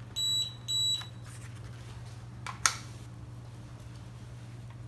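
Two short, high electronic beeps about half a second apart as the FY919 toy quadcopter setup is powered on, then a single sharp click a little past the middle.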